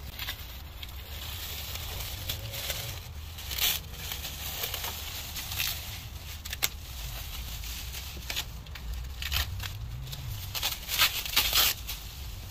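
Thin plastic masking sheet crinkling and crackling in irregular bursts as it is peeled off a freshly spray-painted car and bunched in the hands, with masking tape pulled away from the door; the loudest crackles come near the end.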